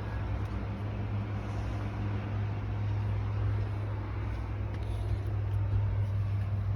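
Steady low mechanical hum with a noisy wash above it, like a running engine or nearby traffic.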